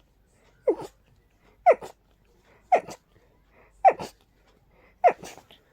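A person sneezing five times in rapid succession, about one sneeze a second, each a sharp burst with a short tail. It is an allergic sneezing attack set off by pollen and dust.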